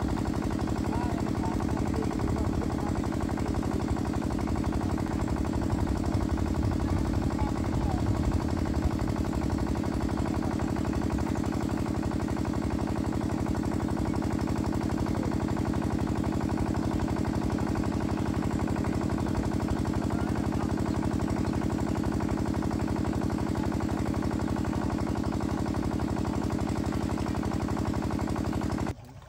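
A small engine running steadily at an even, fast beat, which cuts off suddenly near the end.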